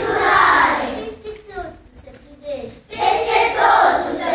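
A group of young children's voices reciting a prayer aloud together in a sing-song chant, in two loud phrases with a quieter stretch between them.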